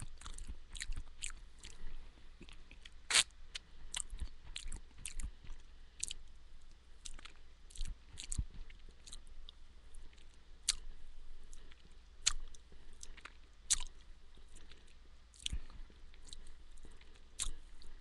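A person chewing and crunching a mouthful of homemade granola with almonds and sunflower seeds, close to a headset microphone: irregular crunches, several a second, with a few sharper ones.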